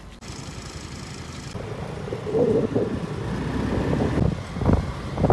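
Motorcycle running and pulling away in traffic, with engine rumble and road noise growing louder, and wind buffeting the microphone in gusts near the end.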